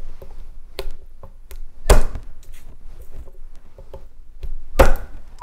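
Garlic cloves being whacked with a kitchen knife on a wooden cutting board, which loosens their papery skins: two heavy thumps, about two seconds in and near the end, with light knocks and clicks of the knife and cloves between.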